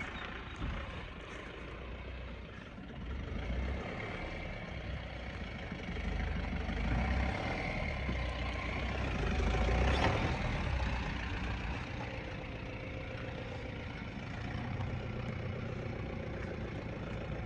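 Mahindra Bolero Camper 4x4 pickup's diesel engine running at low speed as the truck crawls over rough dirt. It grows loudest as it passes close, about ten seconds in, with one sharp knock there.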